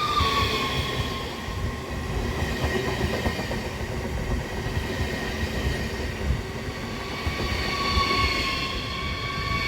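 A train running past close by: a continuous loud rumble of wheels on the rails, with thin high ringing tones over it at the start and again near the end.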